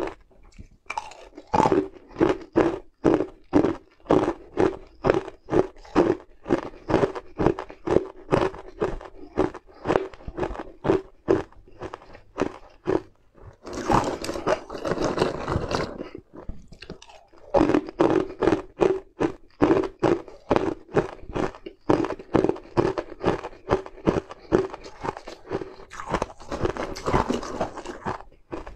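Ice cubes being chewed, crunching in a steady rhythm of about two to three bites a second. Twice, once midway and once near the end, a longer rattling scrape as a spoon scoops ice cubes out of a plastic bowl.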